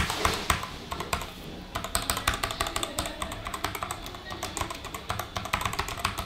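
Typing on a Vortex VX8 mechanical keyboard fitted with Outemu brown tactile switches, a quick, irregular stream of key clicks and keycap clacks.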